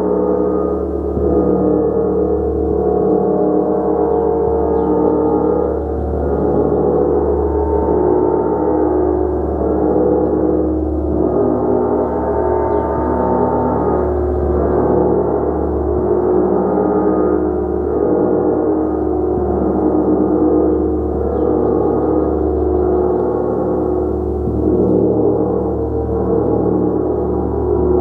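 Large gong played continuously in a sustained wash: a dense mass of overlapping ringing tones with a slow, pulsing swell in the bass, no single strike standing out.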